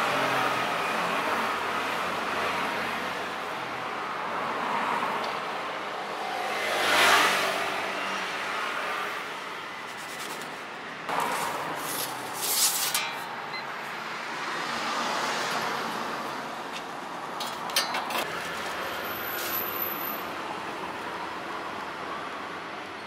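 Street traffic going by, with one vehicle passing close about seven seconds in, and a few light knocks and clatters later on.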